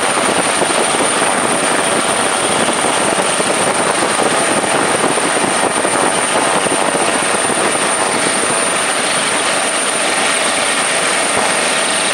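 Helicopter running, heard from on board: a loud, steady blend of rotor and engine noise with a thin high whine above it.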